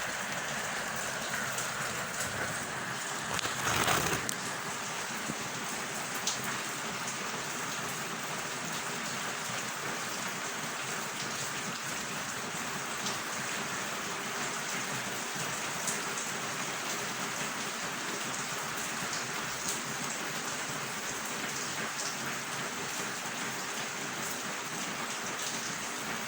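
Steady rain falling: an even hiss with scattered drop clicks, and one brief louder swell about four seconds in.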